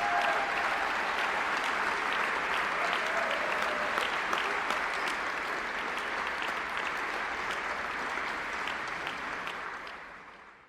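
A crowd applauding, dense steady clapping that fades out near the end.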